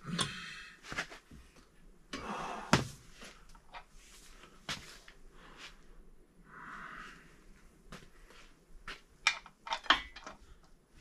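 Metal hand tools clanking, scraping and knocking as a large wrench and socket are worked off the crankshaft hub bolt of an engine block. The loudest sound is a sharp metallic knock about three seconds in, and a quick run of clicks comes near the end.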